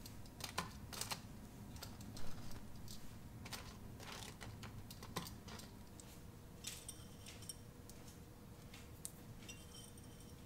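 Faint scattered light clicks and taps of kitchen handling, then seeds sprinkled onto a ceramic soup bowl, with short ringing clinks.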